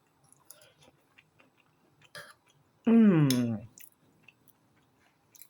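A person eating, with faint chewing and small mouth clicks, then one loud hummed "mmm" of enjoyment about three seconds in, falling in pitch.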